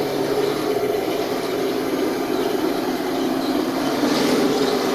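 Henglong M41A3 Walker Bulldog RC tank's simulated engine sound playing steadily from its built-in speaker, a continuous engine-like hum.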